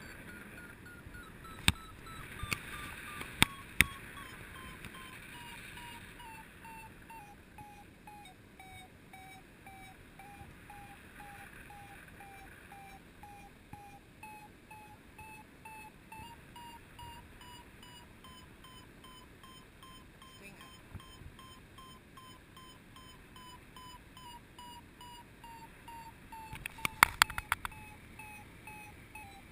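Paragliding variometer beeping: a steady run of short electronic beeps, the sound that signals the glider is climbing. Their pitch sinks over the first several seconds and then slowly rises again. A few sharp clicks come early on, and a cluster of loud clicks or knocks comes near the end.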